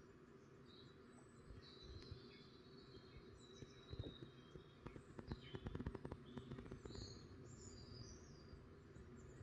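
Faint small-songbird chirps and calls played from a TV's bird-feeder video, coming and going in short bursts. About halfway through there is a run of faint clicks and rustling.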